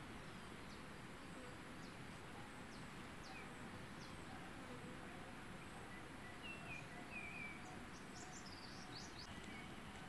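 Faint outdoor ambience: a steady hiss of background noise with small birds chirping now and then, and a quick run of high chirps about nine seconds in.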